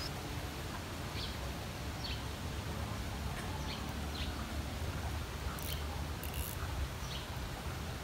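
Wind rumbling on the microphone, with small birds giving short, high, down-slurred chirps every second or so.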